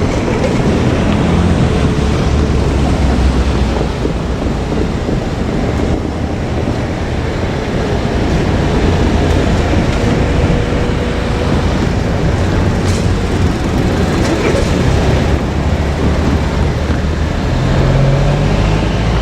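JR Kyushu 787-series electric train running along the track, a steady rumble with a broad rushing noise.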